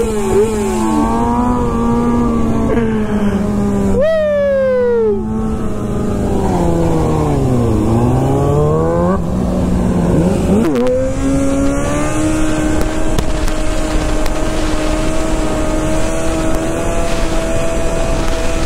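Motorcycle engines running under changing throttle, the pitch rising and falling with the revs. It drops sharply about four seconds in, dips and climbs again around eight seconds, then rises near eleven seconds and holds a steady, higher pitch.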